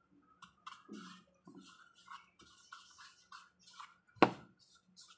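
Spatula stirring and scraping batter in a mixing bowl: a run of short, quiet scrapes, with one sharp knock a little after four seconds in.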